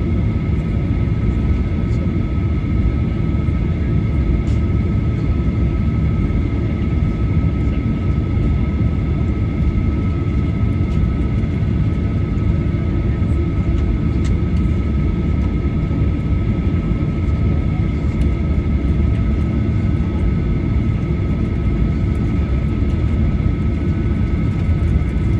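Steady cabin noise inside a Boeing 737-900ER: its CFM56-7B jet engines running at low power with a dense low rumble and two steady whine tones, holding level throughout.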